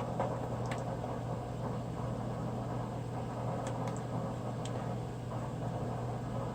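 Steady low hum with a few faint, light clicks of small hardware being handled as an M.2 NVMe drive is seated into its motherboard slot.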